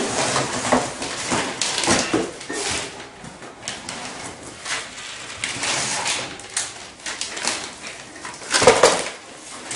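Cardboard and packing material rustling, scraping and knocking as a bicycle is lifted out of its shipping box, with a louder scrape near the end.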